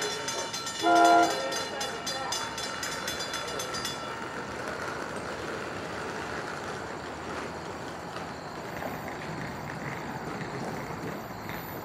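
A short, loud train horn blast sounds about a second in, over a grade-crossing bell ringing steadily. The bell stops about four seconds in, leaving faint steady background noise.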